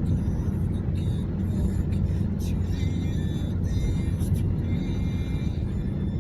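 Music playing over a steady low rumble.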